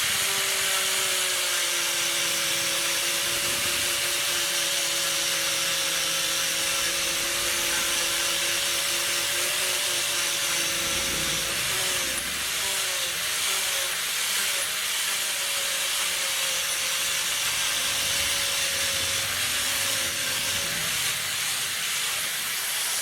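Electric power tool running steadily with a loud abrasive hiss, as in grinding or sanding. Its motor tone wavers and dips repeatedly in the second half as it is pressed into the work.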